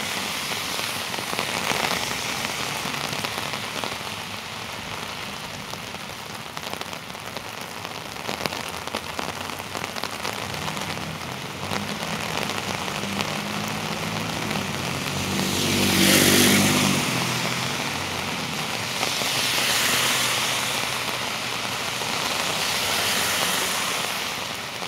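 Heavy rain falling steadily on the street. A passing vehicle builds up and fades with engine hum and wet-tyre hiss, loudest about 16 seconds in, and two more swells of tyre spray follow later on.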